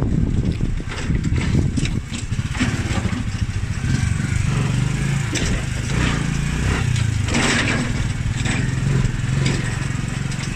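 A small motor vehicle's engine running steadily at a low pitch as it travels along a bumpy dirt road, with scattered rattles and knocks from the rough surface.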